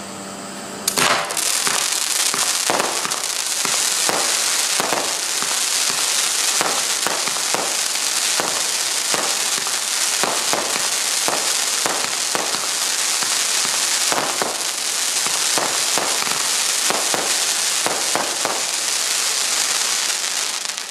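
Vivid Pyrotechnics 'Strike' firework cake firing shot after shot, about one every three quarters of a second, starting about a second in. Between the shots runs a steady crackling hiss from the time-rain tails and the crackling crossette breaks.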